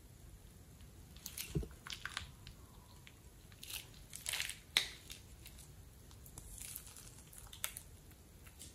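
Plastic piping bag crinkling and crackling in a hand as it is squeezed empty, in a few short spells with sharp clicks, the loudest click a little under five seconds in.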